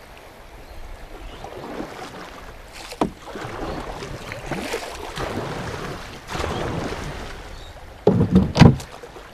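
Paddle strokes in an Old Town canoe: the water swishes and splashes with each stroke. There is a sharp knock about three seconds in and louder knocks near the end.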